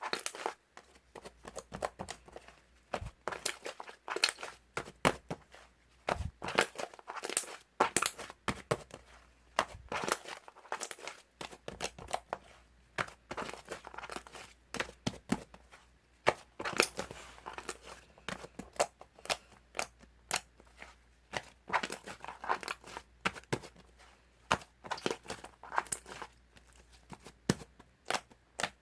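Homemade slime being squeezed and worked by hand, its trapped air bubbles popping in irregular sharp snaps and crackles, several a second.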